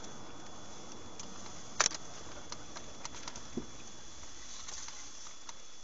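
Steady in-car driving noise picked up by a dashcam, with scattered light ticks and clicks and a sharp double click about two seconds in, over a faint steady high whine.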